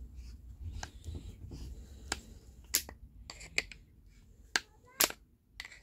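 About half a dozen sharp, irregular clicks and taps, roughly a second apart and loudest in the second half, from small tools and metal parts being picked up and set down on a wooden workbench.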